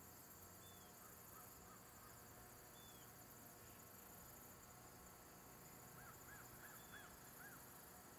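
Near silence: faint outdoor ambience with a steady, high insect drone and a few faint bird chirps, then a quick run of five short rising-and-falling bird notes about six seconds in.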